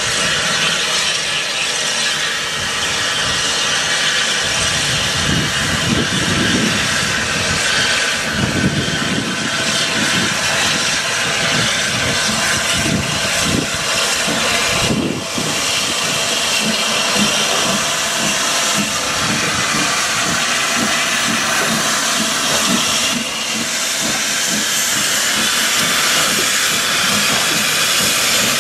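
Industrial steam tank engine working: a steady loud hiss of escaping steam with low exhaust chuffs as it moves.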